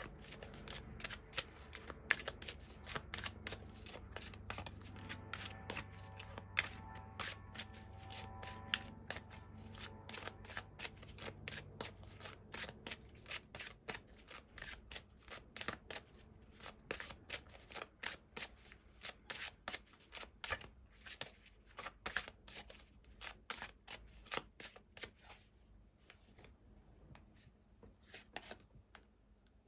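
A tarot deck being shuffled by hand: a long run of quick card clicks and riffles that thins out to scattered single clicks over the last few seconds.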